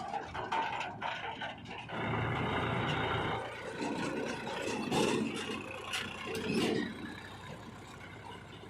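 JCB 3DX backhoe loader at work: its diesel engine gets louder about two seconds in, with knocks and clatter, and two louder swells before it eases off near the end.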